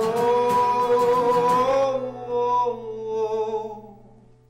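A man sings a long held, wavering note over a ringing acoustic guitar chord. About two seconds in, the voice and guitar trail off softly and fade to near quiet by the end.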